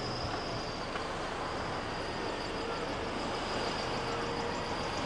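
Steady low diesel engine hum of a motor yacht manoeuvring slowly to dock, over an even background noise with a faint steady high-pitched hiss.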